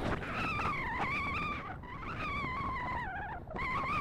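A hunting dog giving a high, drawn-out whining yelp that wavers in pitch, with a short break about three and a half seconds in.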